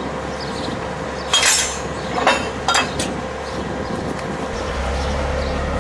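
Steel clanks from the railroad coupler attachment's release lever and linkage being worked by hand: one ringing clank about one and a half seconds in, then two sharper clinks close together about a second later. Under them is the steady low hum of the wheel loader's running engine.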